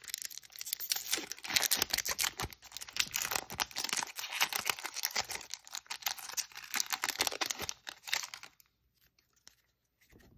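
Foil wrapper of a Magic: The Gathering collector booster pack torn open and crinkled by hand: a dense crackle of tearing foil that stops about eight and a half seconds in.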